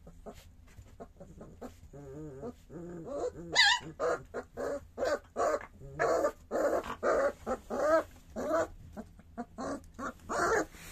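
Three-week-old puppy whimpering and crying over and over, with a high wavering yelp about three and a half seconds in, then short cries about two a second.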